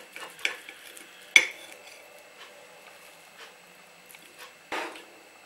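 A kitchen knife cutting fried wafer-coated meat patties on a ceramic plate: a few light cutting strokes, a sharp clink of the blade against the plate about a second and a half in, and a short scrape near the end.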